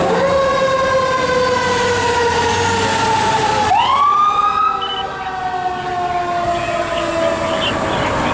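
Fire department emergency vehicle siren on wail as the units respond. Its pitch falls slowly, sweeps quickly back up about four seconds in, then falls slowly again.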